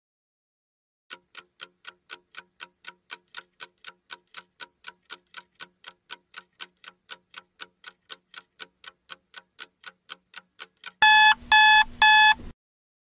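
Countdown timer sound effect: clock ticking at about four ticks a second for roughly ten seconds, then three loud electronic alarm beeps as the timer reaches zero, signalling time is up.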